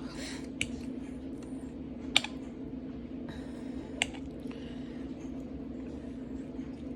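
Cutlery clicking against a plate: a short scrape at the start, then three sharp ticks, the loudest about two seconds in, over a steady low hum.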